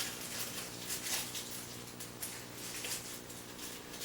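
Soft rustling and light taps as small plastic statue parts, the pieces of a prop chainsaw handle, are handled and taken from their packaging, over a steady low hum.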